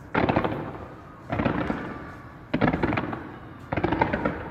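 Fireworks going off in four volleys of rapid crackling, about a second apart, each starting sharply and then fading away.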